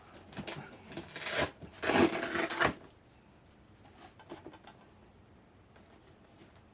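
Removable swoosh patch on a Nike Air Force 1/1 being peeled off its hook-and-loop backing, with several rasping tearing strokes over the first three seconds. After that there is only faint handling.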